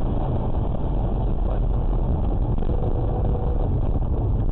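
Steady road and engine noise of a car driving at speed, heard from inside the cabin through a dashcam's microphone.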